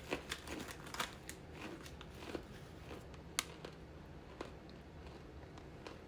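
Close-up crunching and chewing of dry edible starch chunks: a run of crisp crunches over the first two and a half seconds, one sharp crack about three and a half seconds in, then only a few softer crunches.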